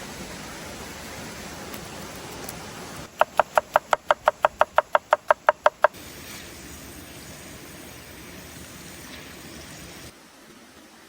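A quick run of about fourteen even knocks, about five a second, over steady background noise.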